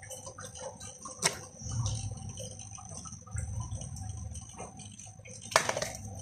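Small battery-powered pump of a converted disinfectant spray gun running with a steady high whine, with two sharp knocks from the bottle being handled, the louder one near the end.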